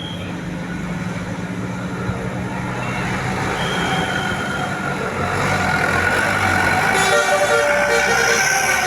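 Bus engine running and growing louder, with a basuri multi-tone horn playing a short 'telolet' run of stepped notes at different pitches in the last couple of seconds.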